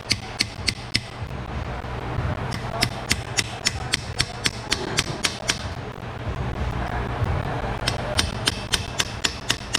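Hammer striking a steel chisel set against a seized, over-torqued lug nut to cut it off the wheel stud. The metal-on-metal strikes come in three runs at about three a second, with short pauses between.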